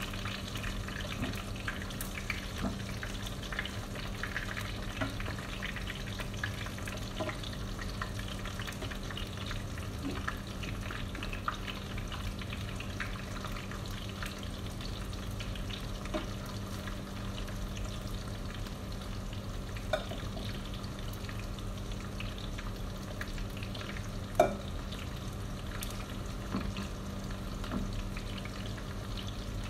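Pieces of boiled goat meat sizzling steadily as they fry in oil in a pan, with light clicks of metal tongs turning and lifting them out into a glass bowl. One sharper clack comes about two-thirds of the way through.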